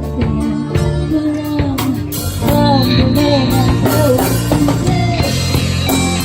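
A band playing rock music: singing over guitar and drum kit, with the melody gliding up and down.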